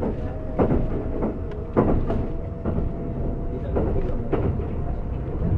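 Kintetsu 50000 series Shimakaze limited express heard from inside its passenger cabin while running: a steady low rumble of wheels on rail, with a faint whine that creeps slightly up in pitch and several sharp knocks at irregular intervals.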